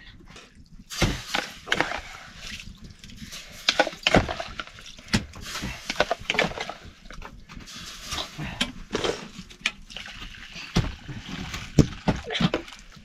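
Water sloshing and splashing, with irregular knocks and clatters.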